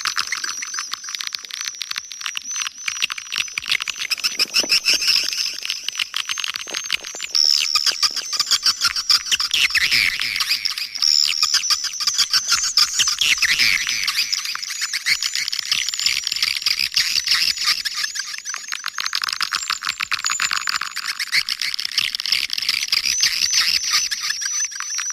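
Edible-nest swiftlets twittering in a dense, continuous chorus of rapid high chirps. This is a swiftlet lure call, played to draw swiftlets into a nesting house.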